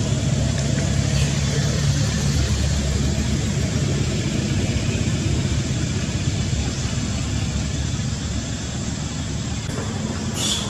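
Steady low rumbling background noise, with a brief high-pitched sound near the end.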